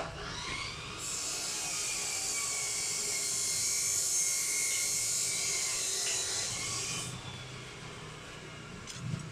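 Electric drill running at speed, a high-pitched whine that spins up about a second in, holds steady and stops about seven seconds in.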